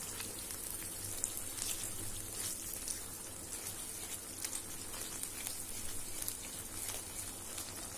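Onion and curd gravy sizzling gently in a nonstick pan on a low flame, with light crackles throughout, as a silicone spatula stirs it.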